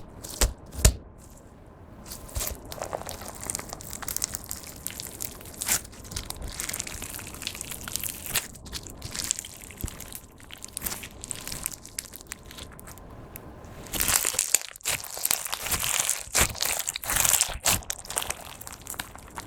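Crunchy pellet slime being squeezed and pressed by hand, the plastic pellets in it giving a dense, irregular crackling and popping. It grows louder and busier for a few seconds near the end.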